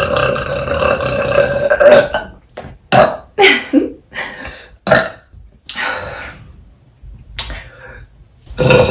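A young woman burping: a long, drawn-out belch that ends about two seconds in, then a string of short burps, one dropping in pitch, and another long belch starting near the end.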